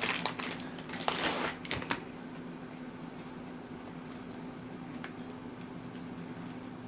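Playing cards and a plastic card bag handled on a table, rustling and clicking for about two seconds, then only a faint steady hum.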